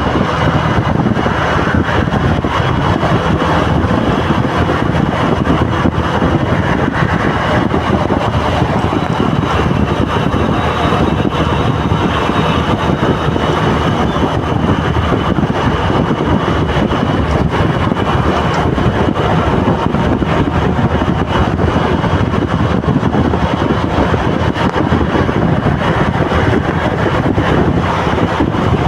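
Steady road-traffic noise of vehicle engines and tyres, with wind on the microphone.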